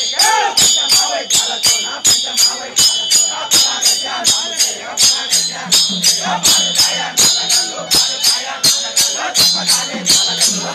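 Procession percussion: drums and metal cymbals beaten in a fast, steady rhythm, about three strokes a second, with bright metallic ringing on each stroke. A low held tone joins about halfway through.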